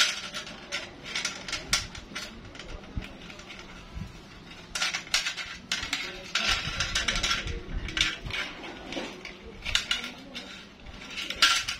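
Steel recoil-starter spring of a Yamaha 40 hp outboard motor being wound by hand, coil by coil, into its metal housing: irregular metallic clinks and scrapes as the coils catch and slide against the housing, with louder runs of clinking near the middle and near the end.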